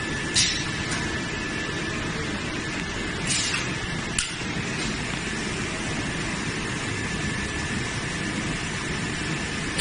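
TPU welding and forming machine running with a steady hum and a thin high whine, broken by short bursts of compressed-air hiss about half a second in and around three and a half seconds in, and a sharp click at about four seconds.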